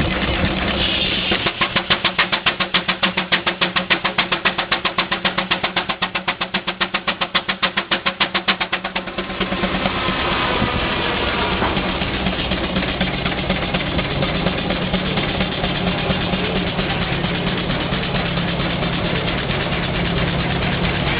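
Advance-Rumely steam traction engine driving a sawmill, its exhaust beating in rapid, even chuffs for several seconds. About nine seconds in the beats give way to a steadier running sound with a low hum.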